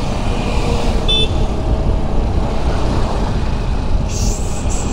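Steady rumble of wind and road noise from riding a scooter in traffic, with a brief high horn toot about a second in and a hiss near the end.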